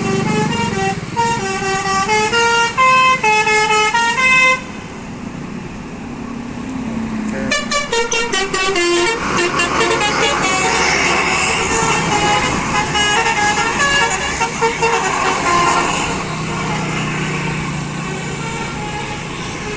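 A bus's 'telolet' multi-tone musical air horn playing a quick tune of stepped notes, breaking off after about four seconds while the engine runs. It starts again at about seven and a half seconds in rapid pulsing trills that run into a dense mix of tones, then gives way to a lower steady engine hum near the end.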